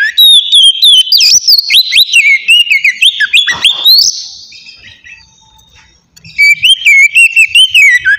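Oriental magpie-robin singing loud, clear whistled phrases in quick succession. The song runs for about four seconds, pauses briefly, then starts again about six seconds in.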